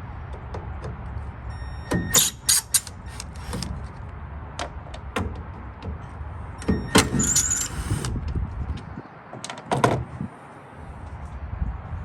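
Impact driver backing out the T15 Torx screws that hold a Chevrolet Silverado tail light. It comes in a few short rattling bursts, with separate clicks between them.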